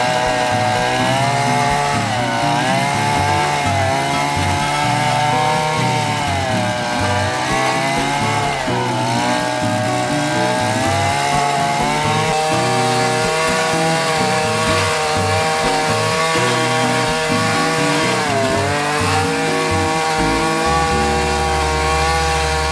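Small petrol engine of a Matsumoto MBC-300 brush cutter running fast, driving a weeder attachment's rotating tines through soil. Its pitch dips briefly three times and recovers.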